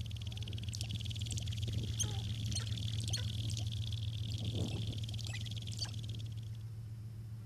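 Sharp-tailed grouse calling: many short high chirps and clucks over a steady, buzzy high rattle, with a few lower calls about halfway through. A steady low hum runs underneath.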